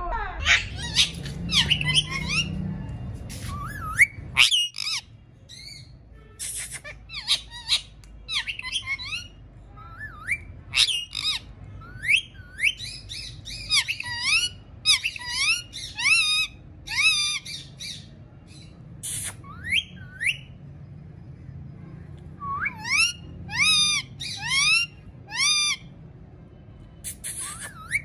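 Alexandrine parakeet calling: short, harsh calls that sweep sharply up in pitch, several a second, in repeated bursts with brief pauses between them.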